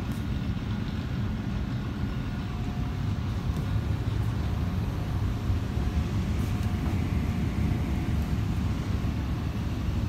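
Steady low rumble inside a TTC T1 subway car, with a faint steady hum over it.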